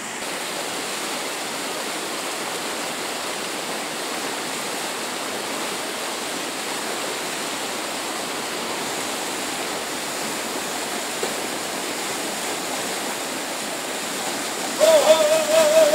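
Steady rush of river water pouring over a weir and churning below it. Near the end a loud wavering call breaks in over the water.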